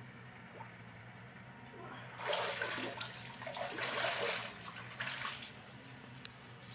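Water pouring and splashing for about three seconds, starting about two seconds in, over a low steady hum.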